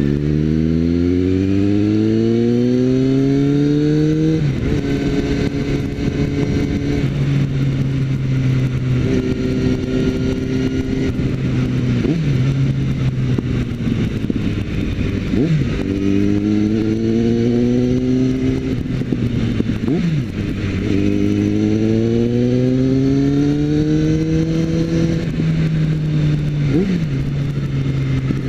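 Suzuki GSX650F's inline-four engine under way, its revs climbing for a few seconds, then holding steady, with short sharp dips about four times as gears are changed before it pulls up again. Wind rush runs underneath.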